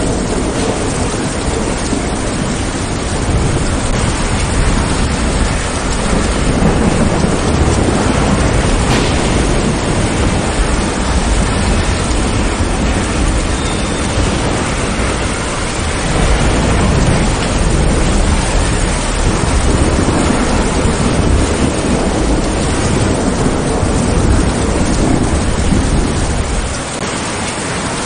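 Steady heavy rain with thunder rumbling low, swelling several times and easing off near the end.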